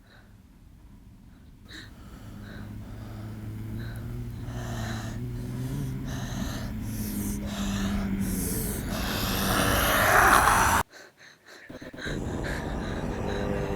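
A person's heavy breathing and gasps, growing steadily louder over a low steady hum and swelling to a loud rush. About eleven seconds in it cuts off suddenly, and quieter sound returns a second later.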